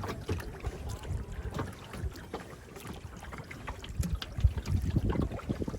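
Kayak being paddled: the paddle blades dip and splash water, with irregular knocks and low rumbles that grow busier in the second half.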